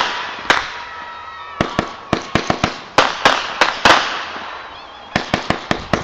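Aerial fireworks bursting overhead: a string of sharp bangs, easing off about four seconds in, then another quick run of bangs near the end.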